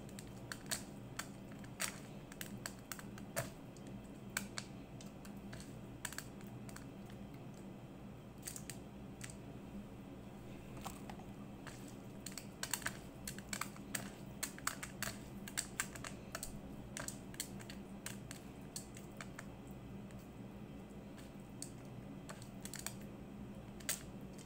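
Irregular light clicks and taps, thickest about halfway through, over a steady low hum.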